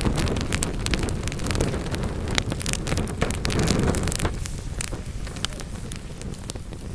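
Wood fire burning in a fireplace: a steady low rumble of flames with frequent sharp crackles and pops from the logs, the rumble easing off after about four seconds.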